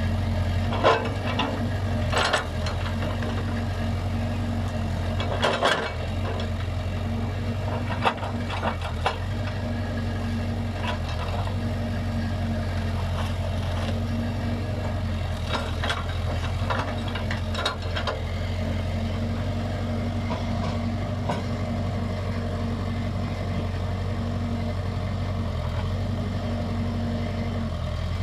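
Case backhoe loader's diesel engine running at a steady speed, with scattered sharp clanks and knocks from the machine at work during the first eighteen seconds or so.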